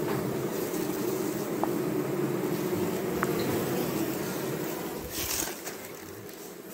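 A mass of honeybees (Apis mellifera) buzzing steadily as a colony is opened for the honey harvest, the buzz easing off about five and a half seconds in.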